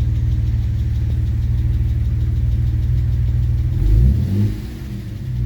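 Mitsubishi 3000GT VR-4's freshly built twin-turbo V6, early in its break-in, idling steadily, then a quick throttle blip about four seconds in that rises in pitch and falls away, as throttle tip-in is being tuned.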